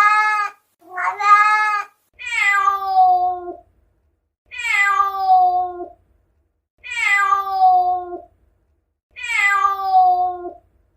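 Domestic cat meowing repeatedly: a short call ending just as it begins, another short steady call about a second in, then four longer meows about every two and a half seconds, each falling in pitch.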